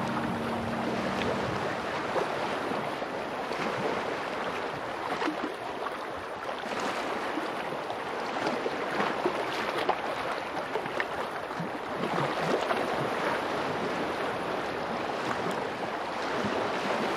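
Steady rush of lake water lapping with wind, with a faint crackle of small splashes throughout; a little background music fades out in the first second.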